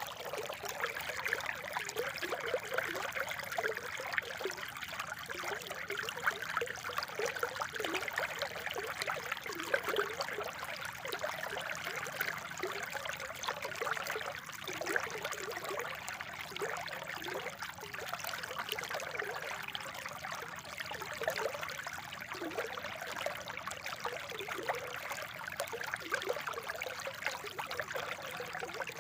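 Spring water trickling and bubbling steadily over stones, a continuous burbling flow.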